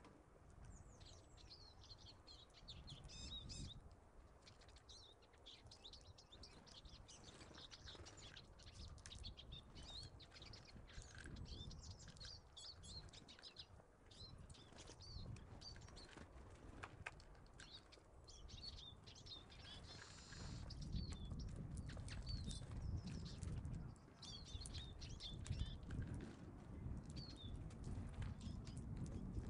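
Small songbirds at a seed feeder, chirping and calling in a busy mix of short, high notes. Wings flutter now and then. A low rumble comes in about two-thirds of the way through.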